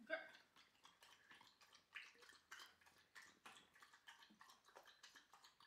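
Dog lapping water, a quiet irregular run of laps about three a second, with one sharper knock right at the start.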